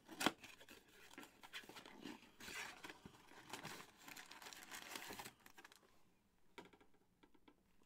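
Faint crinkling and rustling of a trading-card pack's wrapper as it is handled and opened by hand, with a sharp click about a quarter-second in. The rustling stops about five seconds in.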